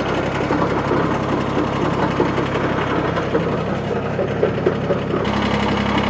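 Kubota compact tractor's diesel engine idling, turning the Woodland Mills WC46 PTO wood chipper's flywheel at low speed with no wood being fed. The running sound is steady, with a steadier hum coming in about five seconds in.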